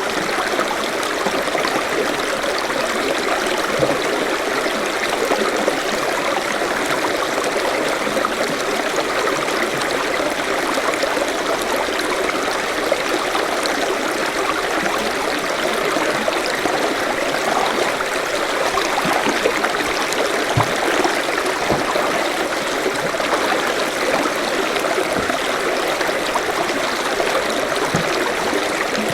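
Forest stream running steadily over stones, a continuous burble with small splashes.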